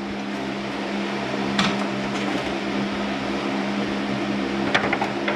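A steady mechanical hum from a running machine, with a few short clicks and knocks from tools being handled.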